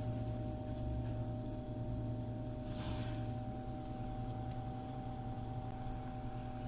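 Refrigerator running: a steady low hum with a few fixed tones above it, and a soft hiss that swells briefly about three seconds in.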